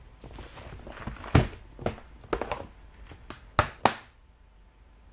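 A handful of scattered knocks and taps from objects being picked up and set down. The loudest comes about a second and a half in, and two sharp taps follow a little later, past the three-and-a-half-second mark.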